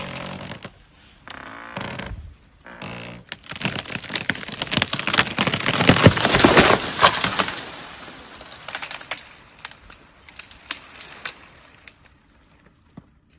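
Tree trunk and branches cracking and splintering as an elephant pushes the tree over. The cracking builds to the loudest snapping and crashing about six seconds in as the tree falls, then dies away into scattered crackles of branches settling.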